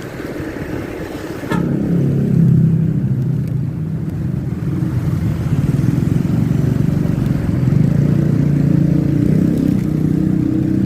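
Bus engine running loud and close: a sudden rise with a click about a second and a half in, then a steady low pitched drone.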